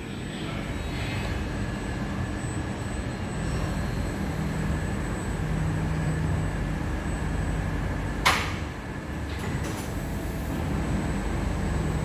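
An MRT train rolling slowly into an underground station behind platform screen doors and coming to a stop, with a steady low rumble. A short, sharp burst of noise sounds about eight seconds in.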